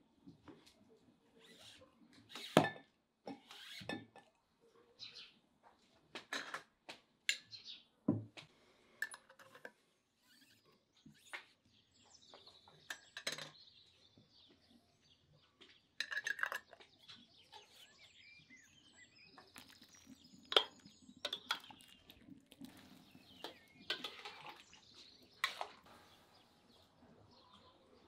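Cookware and utensils being handled: irregular clinks and knocks of pots, dishes and spoons, with a few faint bird chirps.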